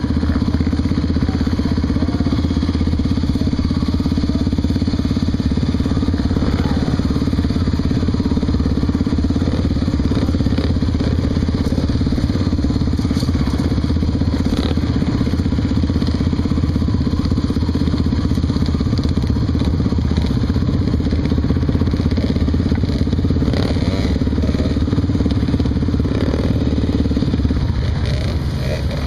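Honda XR 250 Tornado's single-cylinder four-stroke engine running steadily while the motorcycle is ridden, easing off slightly near the end.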